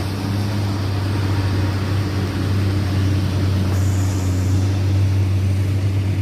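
Heavy truck's diesel engine running close by, a steady low drone that holds the same pitch throughout.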